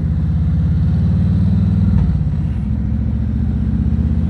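Harley-Davidson Road King Special's V-twin engine running steadily under way, with a deep, pulsing note; the note wavers and dips briefly about two seconds in.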